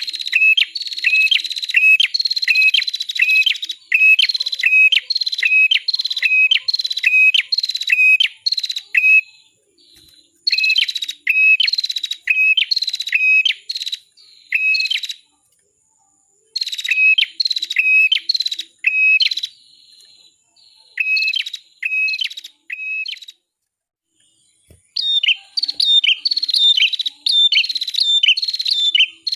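Prenjak kepala merah (a small Indonesian prinia-type songbird) singing: a rapid series of sharp, downward-sweeping whistled chirps, about two a second, delivered in bouts of several seconds separated by short pauses.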